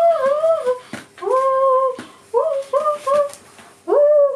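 Shiba Inu whining in a run of high calls, each sliding up quickly and then holding: a longer two-part whine, a long one, three short ones in quick succession, then one more near the end.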